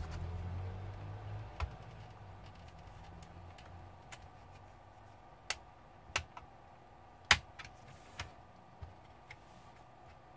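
Scattered sharp clicks and snaps of a plastic laptop case being pried open with a thin spatula, about nine at uneven intervals, the loudest about two-thirds of the way through. A low hum is heard in the first second or so.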